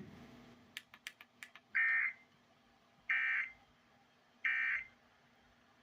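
Three short bursts of EAS digital data tones, about a second apart: the end-of-message code that closes an Emergency Alert System Required Weekly Test. A few faint clicks come just before the first burst.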